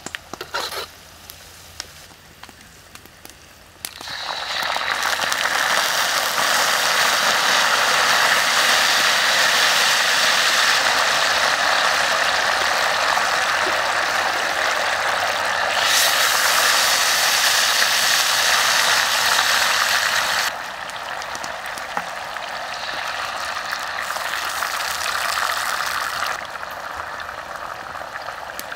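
Chopped ingredients sizzling in hot oil in a wok, a steady crackling hiss that starts about four seconds in and turns quieter about two-thirds of the way through.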